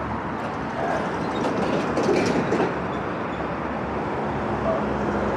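Street traffic at an intersection: cars driving through the crossing. The loudest passage comes about one to under three seconds in, with some clicking and rattling.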